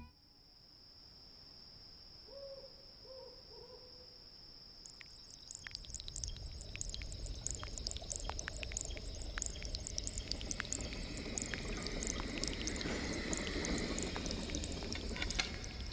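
A steady high thin whine, three short falling hoots a few seconds in, then rapid irregular clicks and a building low rumble: the sound of liquid bubbling and hissing in steaming laboratory glassware.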